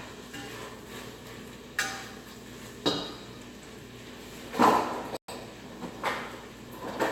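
Cookware clattering: a utensil clinks and knocks against a pan about five times, the loudest a little past the middle.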